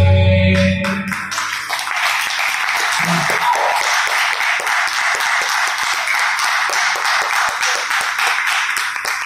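The bhajan's last harmonium and tabla notes die away about a second in, then an audience claps steadily in applause.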